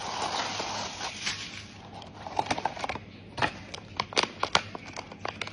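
Rustling of a blind box's packaging being handled and opened, then a run of sharp irregular clicks and crinkles from about two seconds in.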